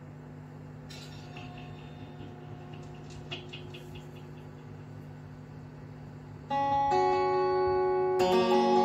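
Indian banjo (bulbul tarang) heard through its add-on pickup: a low steady hum with a few faint string touches, then the strings strummed and ringing out about six and a half seconds in, and strummed again near the end.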